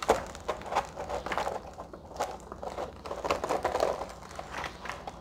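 Rustling and crinkling of a diamond-painting canvas and its paper cover sheets being handled by hand, in irregular crackles.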